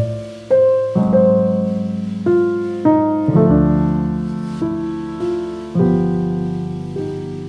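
Background music: slow piano notes struck one after another, each ringing on and fading.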